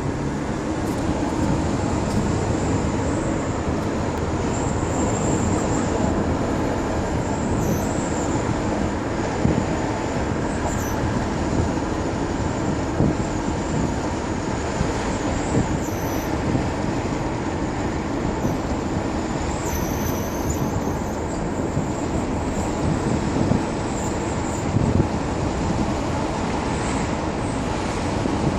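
Car driving with a steady rumble of road and tyre noise, over which a faint high-pitched squeal comes and goes, with a few short ticks: the weird sound from the right rear wheel.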